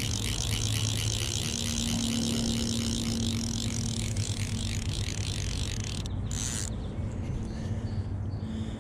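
Fly reel's click-and-pawl drag clicking rapidly and evenly as line runs through it while a hooked trout is brought in; it stops about six seconds in.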